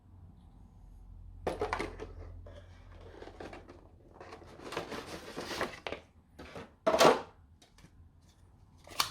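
Microphone box contents and packaging being handled: rustling and scraping, with a sharp loud clack about seven seconds in and a few quick clicks near the end.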